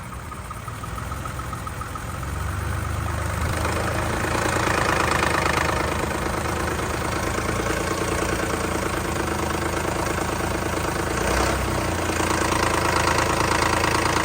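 2010 Lexus RX350's 3.5-litre V6 running with an engine knock, a fast, even ticking in the engine note. It gets louder about two seconds in and again around four seconds, then holds steady.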